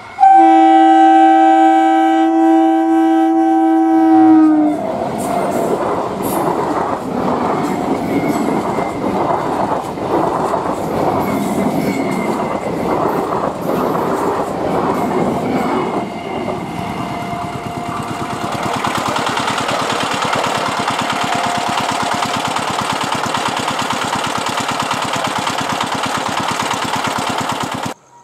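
Conventional EMU local train sounding a long two-note horn blast of about four seconds, which sags slightly in pitch as it ends. Then comes the continuous rumble and rhythmic clatter of its coaches' wheels over the rail joints as it runs past close by, which cuts off abruptly near the end.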